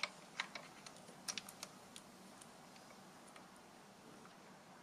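Small, sharp plastic clicks and taps as wire connectors are handled and pushed onto the pin headers of a 3D printer's mainboard. There are several in the first two seconds, then only faint room noise.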